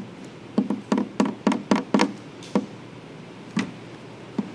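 A run of about ten short, sharp taps and knocks, quick and close together in the first two seconds, then a few spaced ones.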